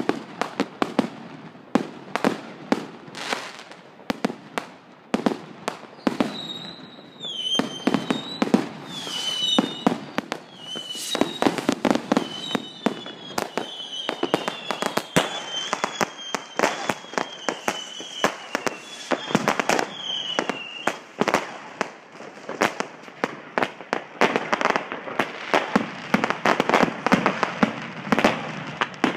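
Fireworks and firecrackers going off: a constant stream of sharp bangs and reports. From about six to twenty seconds in, a run of short whistles, each dropping in pitch, rises over the bangs, and near the end the bangs come thick and fast.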